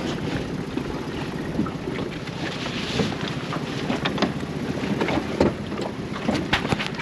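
Inflatable dinghy with its outboard motor running low as it comes alongside a wooden dock, under wind rumble on the microphone. From about three seconds in, a scatter of sharp knocks and clatters as the hull bumps the dock and people climb out.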